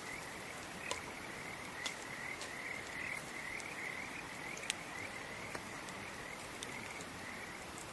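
Wood campfire crackling with a handful of sharp pops, over a night chorus of insects: a steady high-pitched buzz and a rhythmic chirping call repeating several times a second.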